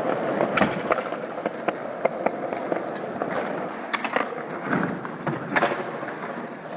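Skateboard wheels rolling steadily over smooth concrete, with several sharp clacks of the boards, the loudest about half a second in and again around four and five and a half seconds in.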